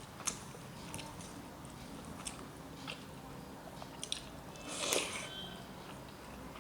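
A person chewing a mouthful of rice and soft vegetable dishes, with scattered wet mouth clicks and a louder burst of eating noise about five seconds in.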